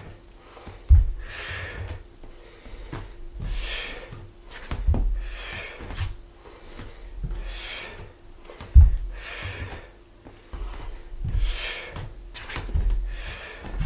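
A man breathing hard through a bodyweight lunge workout, with a forceful exhale every second or two, and dull thuds of bare feet landing on a wooden floor as he steps through; the two heaviest landings come about a second in and near nine seconds.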